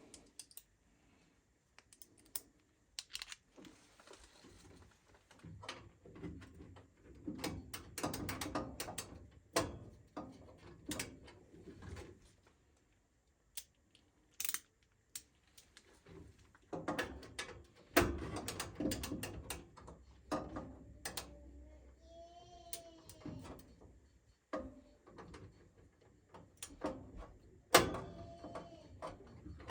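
Scattered clicks, taps and knocks of hands and tools handling furnace parts, with a brief squeak about 22 seconds in.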